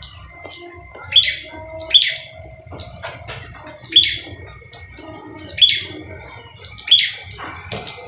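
A caged prinia (prenjak) calling freely: five loud, sharp chirps at uneven gaps, each sweeping down in pitch.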